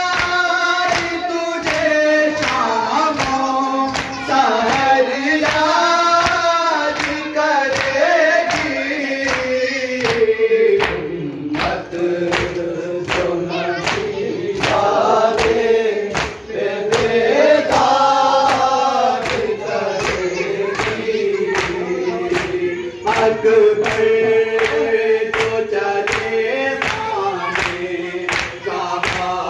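A group of men chanting a noha, a Shia mourning lament, in unison over long held notes. A steady beat of sharp hand strikes, the chest-beating of matam, keeps time at about two a second.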